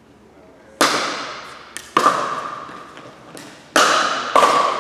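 Pickleball rally: solid paddles striking the plastic ball, four loud hits with fainter taps between them. Each hit echoes around the gym.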